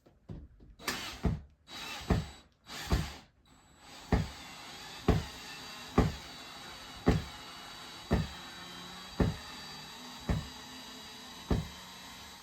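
Cordless drill/driver run in reverse to back screws out: a few short trigger bursts, then a steady run with a sharp click about once a second, stopping near the end.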